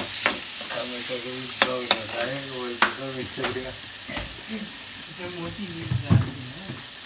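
Chopped tomato and browned onion masala sizzling in oil in a kadhai while a spatula stirs it, striking and scraping the pan in sharp clicks several times. The tomato is being fried down until brown.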